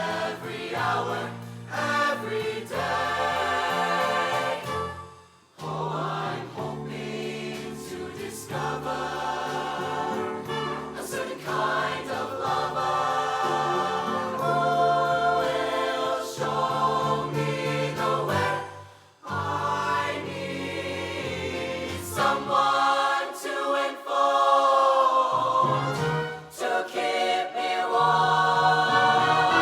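Show choir singing in harmony over a live band with bass and drums, broken by two short pauses.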